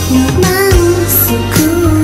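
Japanese pop song playing, with a steady beat under a held, wavering melody line.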